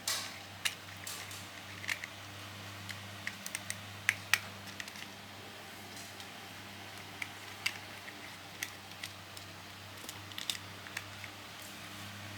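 Irregular small plastic clicks and taps as the parts of a toy mini excavator are handled and fitted together, over a steady low hum.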